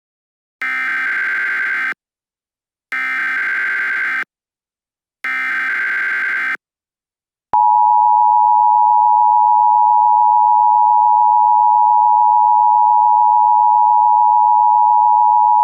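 Emergency Alert System tones. First come three identical bursts of SAME header data, each about a second and a half of buzzy digital warbling, about a second apart. Then, about seven and a half seconds in, the loud, steady two-tone attention signal starts and holds, announcing that an emergency alert message is about to be read.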